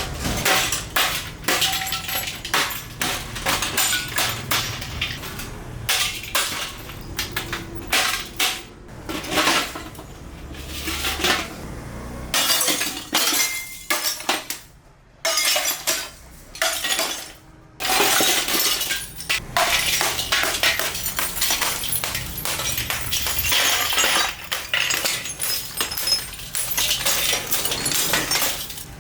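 A scrap television being broken apart by hand: continuous cracking, snapping and clinking of brittle parts breaking. There are two short pauses about halfway through.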